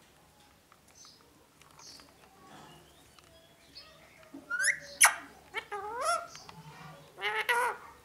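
Pet rose-ringed parakeet calling from about halfway in: a series of short, pitched calls that glide upward, with a sharp click about a second later and a burst of wavering chatter near the end.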